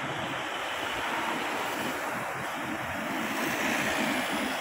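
Steady rain falling, an even hiss of water with no distinct drops standing out.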